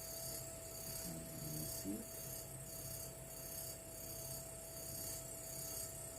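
Steady background hum under a high hiss that swells and fades about once a second, with a brief faint voice about a second in.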